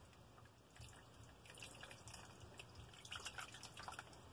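Faint, scattered drips and small splashes of rinse water falling from a brined trout into a plastic tub of brine.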